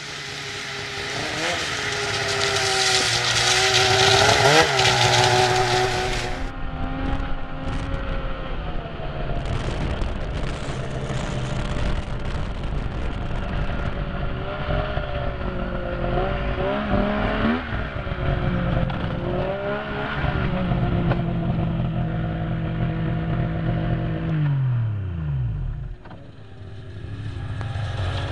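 Snowmobile engine running under throttle, its pitch rising and falling as the rider speeds up and eases off. For a few seconds near the start a loud rushing hiss rides over it. Near the end the engine winds down in a falling sweep, dips briefly, then picks up again.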